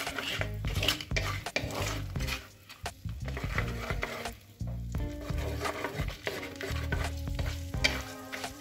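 Whole spices, bay leaf among them, sizzling in hot melted butter in a clay handi. A wooden spatula stirs and scrapes against the pot with frequent short clicks.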